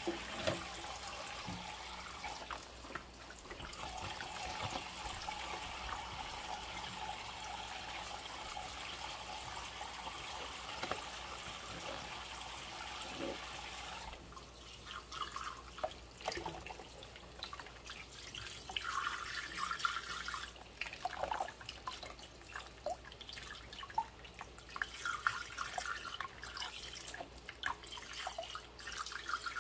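Hand dishwashing in a sink of soapy water: water runs steadily for about the first half and stops suddenly. Then come irregular splashes, drips and clinks of mugs, with short squeaks of rubber gloves rubbing the wet dishes.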